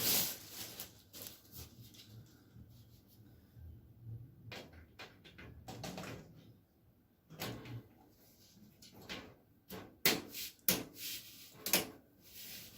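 Plastic clicks and knocks of a Fractal PC case's snap-on vented top panel being handled, with a cluster of sharper clicks near the end as the panel snaps.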